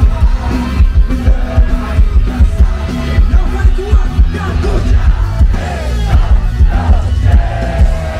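Live rock band playing loud through a large PA, heard from the audience: electric guitars and bass over a steady pounding drum beat.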